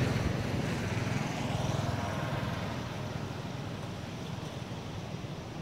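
Passing road traffic, a steady rush that fades over the first few seconds, with low wind rumble on the microphone.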